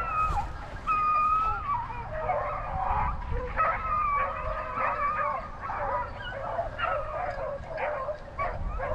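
A pack of hunting dogs baying, many voices overlapping, as they run on a rabbit's scent trail.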